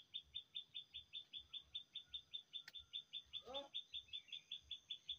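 Rapid, even, high-pitched chirping, about six chirps a second, with one short rising-and-falling animal call about three and a half seconds in.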